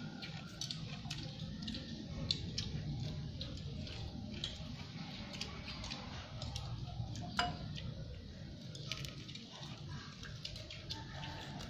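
Scattered light clicks and taps of chopsticks against bowls and plates at a meal table, over a steady low background rumble. Two sharper clicks stand out, about two seconds in and again past seven seconds.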